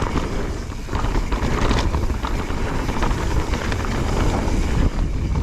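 A mountain bike riding a dirt jump trail, with wind buffeting the microphone as a heavy steady rumble, and short knocks and rattles from the tyres and bike over the ground.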